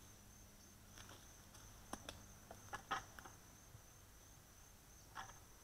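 Faint steady high-pitched insect chirr of crickets, with a few soft scattered clicks and rustles of someone moving over dry leaf litter.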